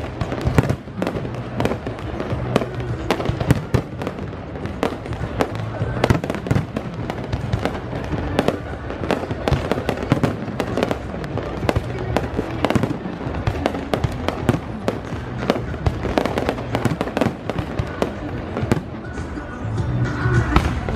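Fireworks display: aerial shells bursting in a rapid, continuous string of bangs and crackles, with music playing underneath.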